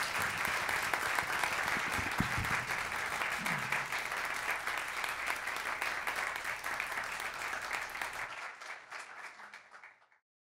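Audience applauding, many hands clapping steadily; the applause fades out near the end and stops.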